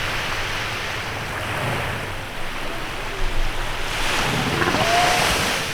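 Waves washing onto a beach, the surf swelling louder about four seconds in as a wave comes in.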